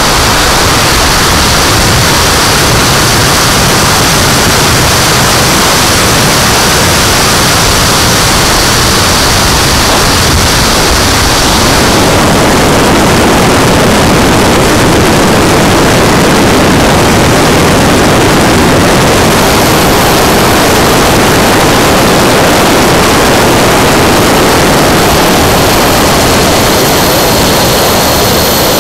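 Model jet turbine at speed, heard through an onboard camera's microphone: a loud, steady rush of wind over a high, thin turbine whine. The sound changes abruptly about twelve seconds in, and the whine is higher and thinner in the second part.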